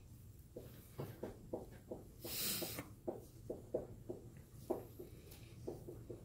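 Dry-erase marker writing on a whiteboard: a run of short strokes and taps a few tenths of a second apart, with one longer, hissier stroke about two and a half seconds in.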